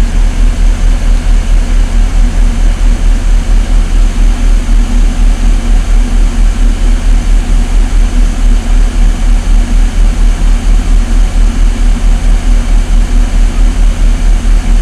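Military vehicle's engine idling, heard from inside the cabin: a loud, steady low drone with an even throb about four times a second.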